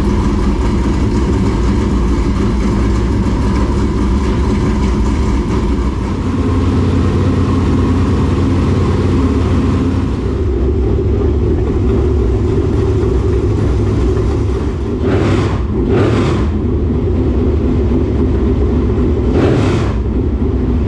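Dirt late model race car's V8 engine running steadily on a check start after sitting; it sounds good. Three short sharp bursts of noise come through in the last third.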